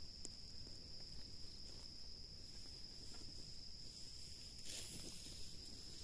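Faint, steady, high-pitched insect drone, with a brief rustle near the end.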